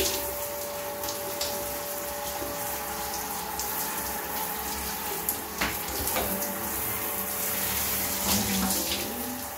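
Handheld shower head spraying a steady stream of hot water onto a glass shower screen and tiles: a continuous hiss and patter of spray. A faint steady whistle sounds for the first three seconds, and a couple of light knocks come about six seconds in.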